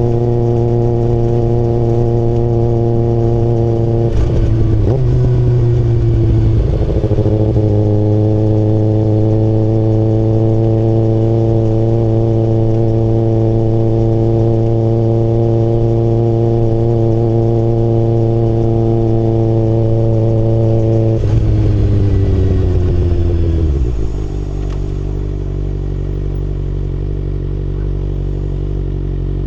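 Kawasaki ZX-6R inline-four engine heard from the rider's seat, running at steady revs. The note dips briefly around five seconds in and recovers. From about twenty-one seconds it falls in pitch and settles into a lower, slightly quieter steady run.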